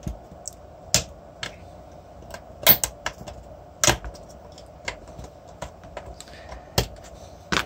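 Irregular clicks and knocks of plastic and metal as the end cap and seal are worked off the finned aluminium case of an e-bike motor controller. The sharpest knocks come about a second in, around three and four seconds, and near the end, over a faint steady hum.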